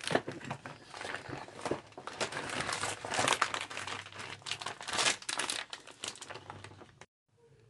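Clear plastic packaging of a makeup brush set crinkling as it is handled, in a dense, irregular crackle that cuts off suddenly near the end.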